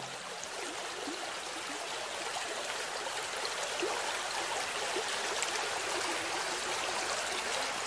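Mountain river rushing and splashing over boulders: a steady, even roar of white water.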